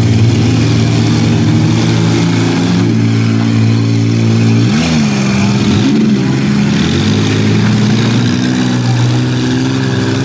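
Minivan engines in a demolition derby running hard as the vans push against each other, with the revs rising and falling sharply about five seconds in and again around six seconds.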